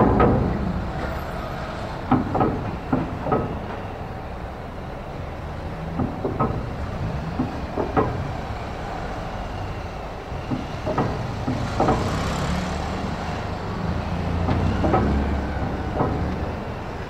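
Vehicles being driven off a docked ferry: a low engine rumble throughout, with irregular clunks every second or two.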